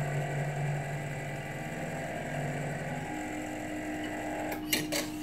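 Stepper motors of a PLC-driven conveyor system running: a steady low hum that changes to a steady higher tone about three seconds in, with a few sharp clicks near the end.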